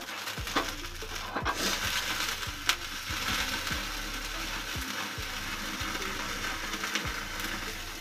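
Marinated chicken leg sizzling over an open gas flame on a wire grill rack. A few sharp clicks of metal tongs against the rack come in the first few seconds.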